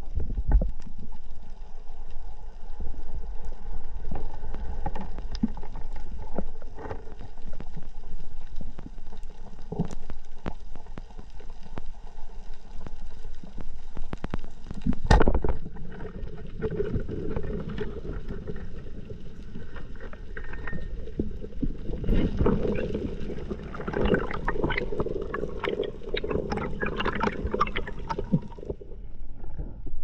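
Underwater sound picked up by a camera at a coral reef: a low water rumble with scattered crackling clicks, and a sharp knock about fifteen seconds in. The clicks and rushing noise grow busier in the last several seconds.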